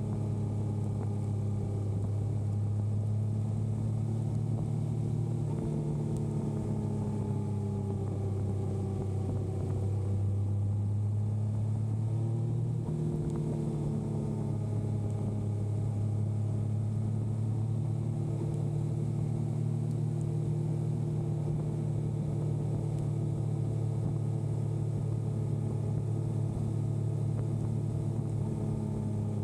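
Yamaha motorcycle engine running steadily while riding, its pitch easing up and down a little mid-way with a sudden change about thirteen seconds in, as at a gear change.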